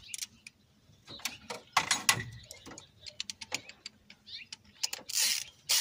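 Irregular metallic clicks and clanks from hand tools and engine parts being handled, loudest about two seconds in, with a brief scraping rustle about five seconds in.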